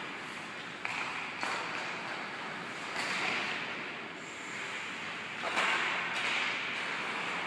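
Ice hockey skates carving and scraping across rink ice during play, with a few sudden, sharp scraping swishes: about a second in, around three seconds and a louder one at about five and a half seconds.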